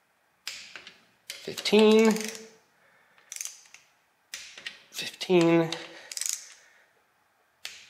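Torque wrench ratcheting in quick clicks as the bolts of a Toyota 2JZ oil pump are tightened to 15 foot-pounds. The clicking comes in a few short spells, two of them ending in a brief squeaking tone as a bolt is pulled tight.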